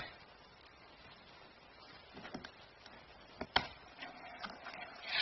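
A cat shifting and rolling inside a cardboard box, its body and paws knocking and scraping against the cardboard: a few short knocks about two and three and a half seconds in, with soft scraping and rustling between.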